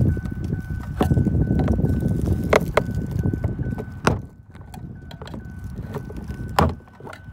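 A pry tool and hands scraping and rubbing against a car's interior door panel as it is worked loose, with a few sharp clicks about two and a half, four and six and a half seconds in. The rubbing is heavy for the first few seconds, then quieter.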